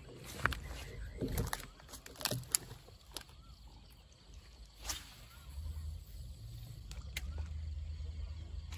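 Fishing gear being handled and cast: a string of sharp clicks and taps from a baitcasting rod and reel as live frog bait goes out onto the water. A low steady rumble sets in about halfway through.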